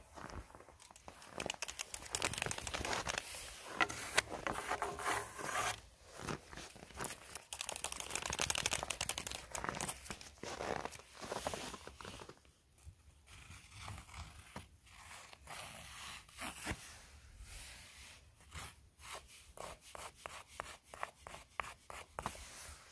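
Footsteps crunching through snow: a dense, uneven run of crunches in the first half, settling into a steadier walking rhythm of about two to three steps a second near the end.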